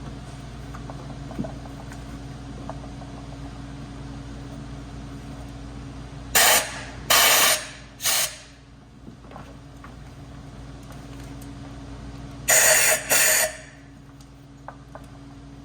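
Compressed-air blow gun fired into a spark plug well in short hissing blasts, three in quick succession and then two more a few seconds later, clearing debris from around the plug before it is removed. A steady low hum sits underneath.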